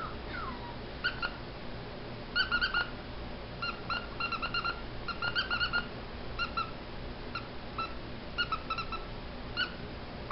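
A squeaker in a plush dog toy squeezed over and over, giving short high squeaks of the same pitch each time in quick runs of a few at a time.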